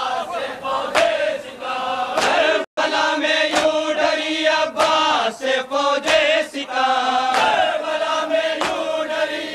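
A group of men chanting an Urdu nauha, a Muharram lament, in a melodic recitation. A sharp beat keeps time about every second and a quarter.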